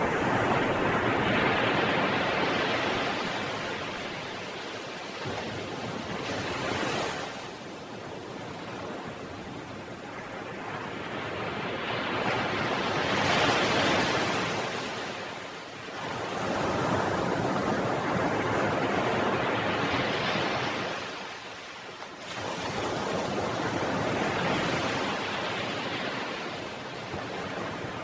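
Ocean surf: a steady rushing wash of waves that swells and ebbs in long surges every few seconds.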